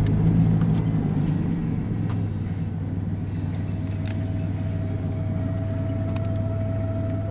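Car engine and road rumble, a steady low drone, as the vehicle pulls in slowly, with a faint steady tone joining about halfway through.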